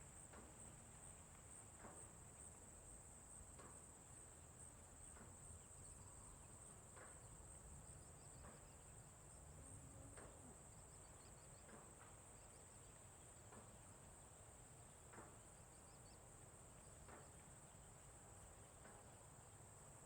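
Faint rural farm ambience: crickets or other insects keep up a steady high drone over a low rumble. Brief faint sounds repeat every second or two, and a few faint high chirps come in the middle.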